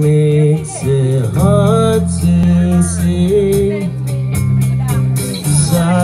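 Live band performing through a PA: sung vocals over guitar and drums, with regular cymbal strokes, recorded from within the crowd.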